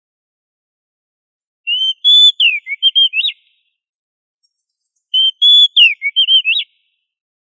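Oriental magpie-robin (kacer) singing: two identical short whistled phrases a few seconds apart, each a held clear whistle followed by a quick run of falling and rising notes.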